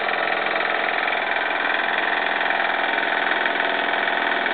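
Jensen 75 model steam engine running steadily with a fast, even beat, under load as it drives a line-shaft hoist lifting about 16 pounds of water.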